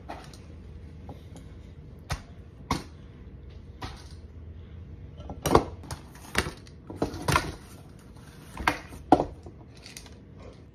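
Stainless-steel dog bowls being handled and set down on a kitchen counter: a series of separate knocks and clanks, the loudest ones coming close together in the second half.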